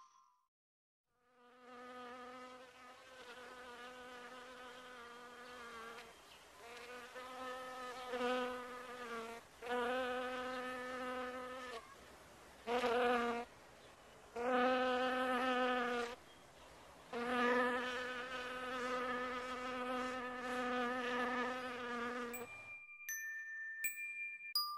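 An insect-like buzzing drone at one steady low pitch, starting about a second in and coming in stretches of a few seconds with short breaks. Chime notes start near the end.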